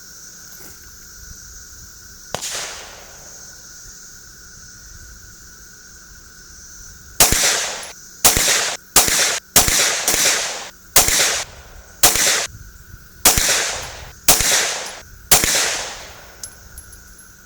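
Canik TP9SFX 9mm pistol fired in slow aimed fire, about ten shots roughly a second apart, each with a short echo. Before them there is one fainter shot, and a steady insect chorus runs under it all.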